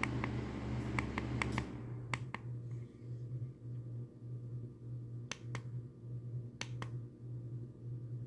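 Sharp clicks of the buttons on a plug-in thermostat being pressed: a quick run of them in the first two and a half seconds, then two pairs of clicks later on, over a steady low hum. A rushing noise under the first clicks cuts off suddenly near the two-second mark.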